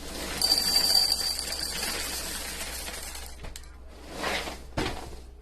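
Chocolate Cheerios poured into a bowl: a dense rattling patter that is loudest at first and tapers off over about three seconds, followed by a short swish and a click near the end.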